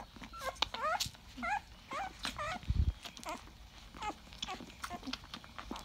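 Litter of 18-day-old Rottweiler puppies nursing, giving many short, high squeaks and whimpers among sharp little clicks of suckling, with one low thump just before three seconds in.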